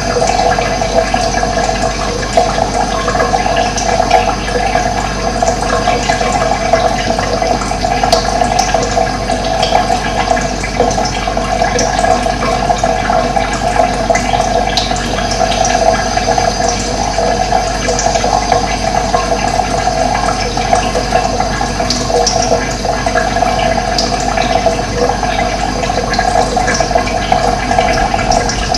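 Steady rush of running water, with faint short bird chirps now and then.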